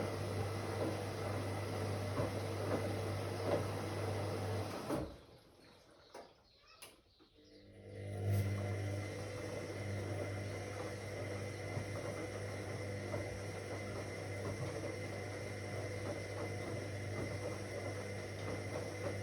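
Whirlpool AWOC 8283 washing machine turning its drum with a steady motor hum, stopping for about three seconds about five seconds in, then starting up again with a surge and running on steadily: the pause and restart of the wash cycle's tumbling.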